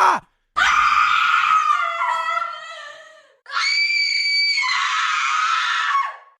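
Screaming sound effects played back to back: a person's scream that fades away over about three seconds, then a high-pitched held scream of about three seconds that drops in pitch partway through and cuts off.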